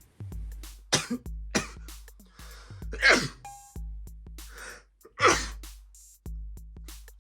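A man sneezing over and over, his nose congested from a cold, with sneezes set off by tickling the nose with a twisted tissue. There are a couple of short, sharp sneezes in the first two seconds, then two big voiced sneezes about three and five seconds in that drop in pitch, each after a breathy intake. Background music with a steady beat runs underneath.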